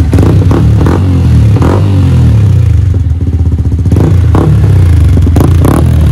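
Yamaha R15 motorcycle's single-cylinder engine running at idle and blipped several times, each blip a short sharp rise in revs. It is fitted with a swapped-in exhaust whose note is judged not loud.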